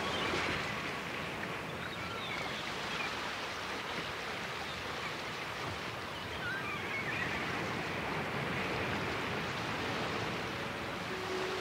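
Recorded ocean surf: a steady wash of waves with a few faint, short high chirps over it. Soft sustained music notes come in near the end.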